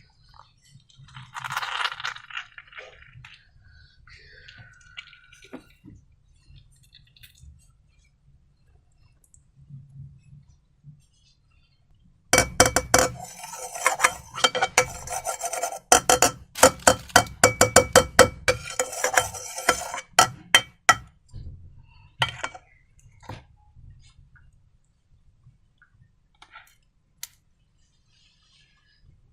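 Rapid clinking and rattling of hard objects against a ringing container, running for about eight seconds in the middle, with quieter handling noise before and after.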